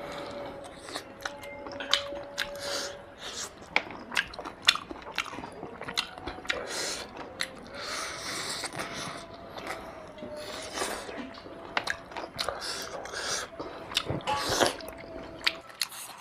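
Close-up wet chewing of mouthfuls of rice and mutton curry eaten by hand, with many sharp mouth clicks and crunches.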